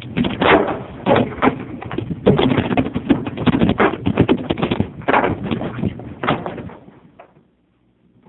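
Small rockslide sound effect: a dense run of rocks crashing and clattering, starting abruptly and dying away near the end.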